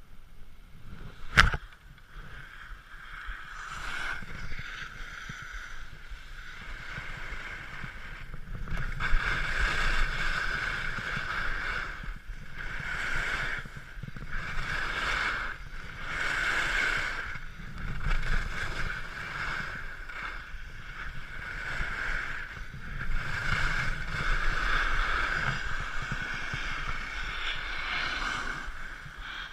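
Skis scraping and carving on packed piste snow on a fast downhill run, the rushing noise swelling and fading with each turn every second or two, mixed with wind on the microphone. A single sharp click about a second and a half in.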